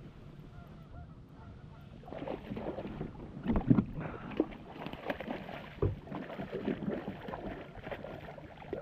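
Water splashing and knocking against the boat as a hooked rainbow trout thrashes at the surface beside it. The splashes start about two seconds in and come irregularly, loudest a little over three seconds in and again near six seconds.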